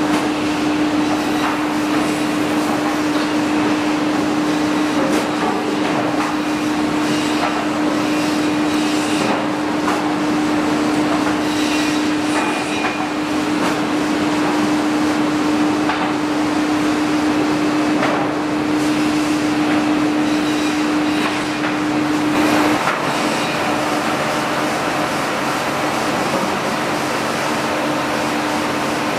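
Sawmill lumber-handling conveyors running: a steady machine hum under irregular knocks and clatter of boards riding and dropping on the chain conveyors.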